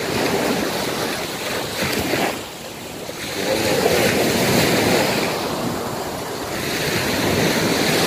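Small sea waves breaking and washing up the sand in swells that rise and ease, with a lull about three seconds in. Wind is buffeting the microphone.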